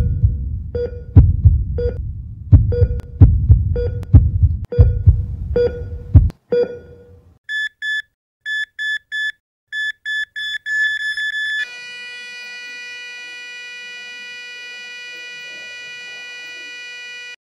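Heartbeat sound effect with a heart-monitor beep on each beat, about one a second. After about six seconds the heartbeat stops and the monitor gives quicker, higher, uneven beeps. Then, about two-thirds of the way through, a continuous flatline tone takes over, the monitor's sign that the heart has stopped.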